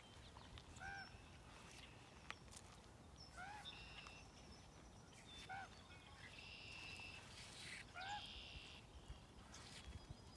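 Faint bird calls outdoors: four short calls, each rising then falling in pitch, a couple of seconds apart, with some thinner higher chirps between them.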